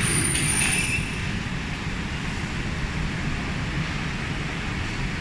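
Machine-shop noise from metal machining equipment running: a steady low rumble, with a high thin whine that stops about a second in.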